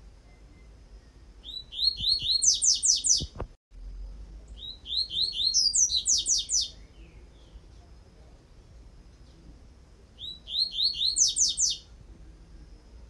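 Double-collared seedeater (coleiro) singing the tui-tui song type. It gives three high, quick phrases of rapidly repeated notes, each about two seconds long and a few seconds apart.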